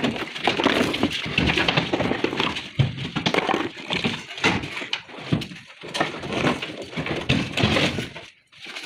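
Tarkwa flat stone slabs clattering and scraping against one another as they are pulled from a stacked truckload and set down, a steady run of irregular knocks and scrapes. It drops away briefly near the end.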